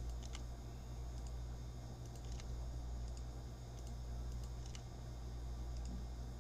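Faint, scattered clicks of a computer keyboard and mouse at irregular intervals, over a steady low electrical hum.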